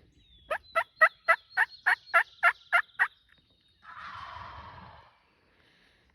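Wild turkey calling: a run of about ten sharp yelps, about three a second, then about a second of a tom's rattling gobble.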